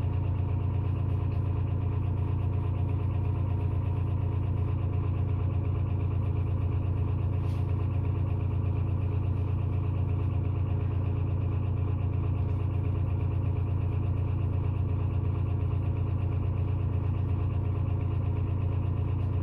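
Steady low motor hum that holds the same pitch and level, with no breaks.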